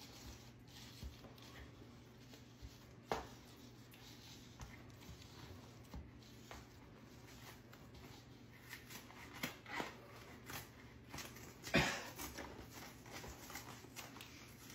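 Faint scrapes and light clicks of a metal spoon in a plastic tub of soft homemade butter, with a sharper knock about three seconds in and a louder one near twelve seconds.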